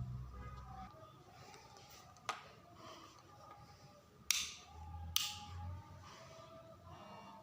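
Faint electrical buzz of a 52-inch Alaska ceiling fan motor fed through a dimmer-type variable speed control, with a low hum that fades out about a second in. Three sharp clicks cut through it, the loudest two near the middle.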